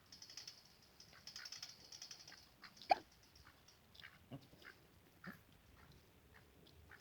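Pekin duck sneezing once, a short sharp snort about three seconds in. Before it there is faint rapid clicking, and a few small taps follow.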